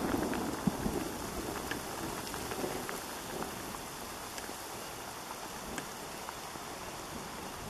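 Steady rain falling on grass, with scattered sharp drop ticks. A thunder rumble fades out over the first second or so.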